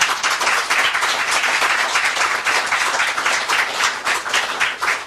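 Audience applauding: many hands clapping in a dense, steady stream that thins slightly near the end.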